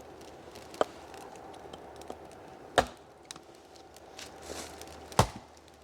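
Firewood being chopped: three sharp blows about two seconds apart, the last two the loudest.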